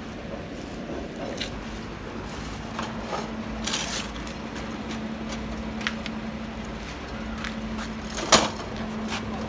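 Workshop sounds: a steady low hum with scattered light clicks and knocks, and one sharp knock about eight seconds in.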